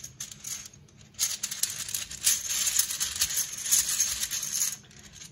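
Small game tiles rattling and clicking together as a hand shuffles them inside a cloth bag; the rattling starts about a second in and stops shortly before the end.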